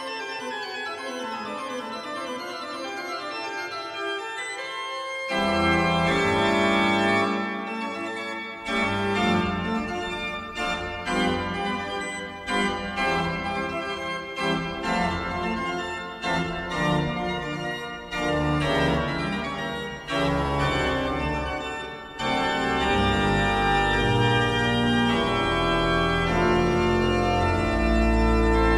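Pipe organ music. A quiet, high passage gives way about five seconds in to full organ with deep bass notes and a busy run of changing notes. From about twenty-two seconds it settles into loud held chords.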